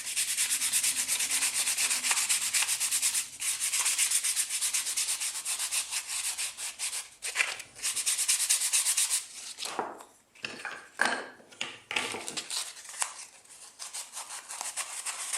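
A small wooden part is sanded by hand with sandpaper, in quick back-and-forth scratchy strokes. After about nine seconds the strokes turn sparse and intermittent, a few short rubs and scrapes.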